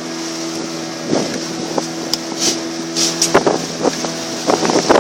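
Tour boat's motor running steadily under way, with water hiss and a few short knocks from the hull on the waves.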